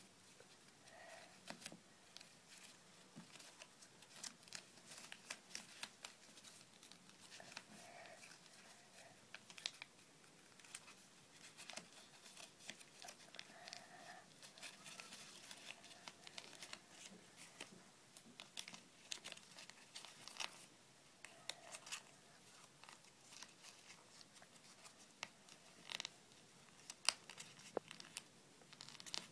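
A sheet of origami paper being folded and creased by hand: faint, scattered rustling and crinkling with small clicks.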